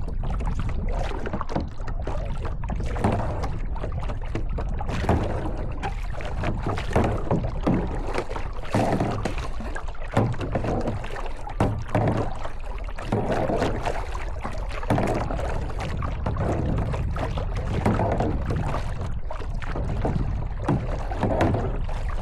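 Kayak paddle strokes dipping and splashing in the water every second or two, over a steady low rumble of wind on the microphone.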